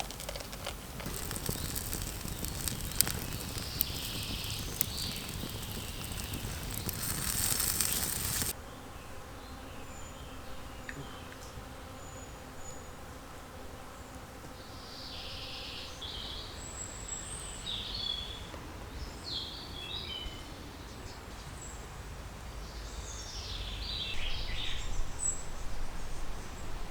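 Outdoor ambience: a steady hiss with scattered clicks for the first eight seconds or so, cutting off suddenly. After that comes quieter background with short, high bird chirps and a few falling notes.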